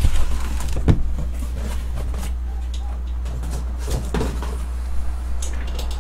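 Handling of a cardboard shipping case and the shrink-wrapped hobby boxes inside it: a knock about a second in, then light scrapes and clicks, with a cluster of clicks near the end, over a steady low hum.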